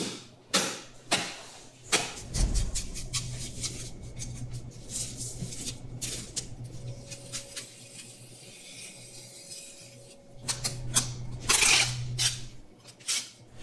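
Knife and hook work on a whole bluefin tuna: a few sharp knocks in the first two seconds, then the blade scraping and slicing along the fish's skin and flesh. A low hum comes and goes under it.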